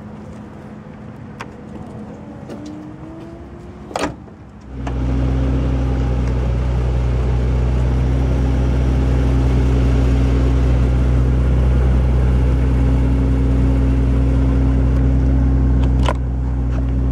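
Power-closing trunk lid of a Mercedes-Benz S-Class: a short rising motor whine, then the lid thumps shut about four seconds in. Right after, a loud steady low drone made of several tones sets in suddenly and holds, easing slightly near the end.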